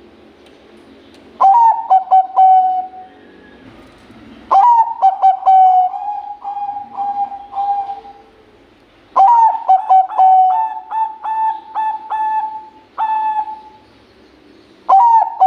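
Zebra dove of the Bangkok perkutut strain cooing: three song bouts and the start of a fourth near the end. Each bout opens with a sharp note and a quick stutter of short notes, then settles into a longer, held coo.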